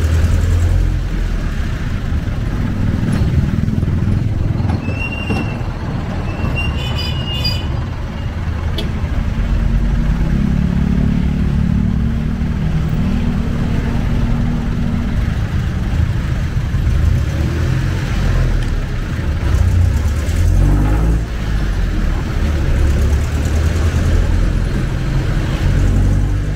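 Jeepney's diesel engine and road noise, heard from inside the passenger cabin: a steady low rumble that swells for a few seconds about ten seconds in. A few brief high squeaks come about five seconds in.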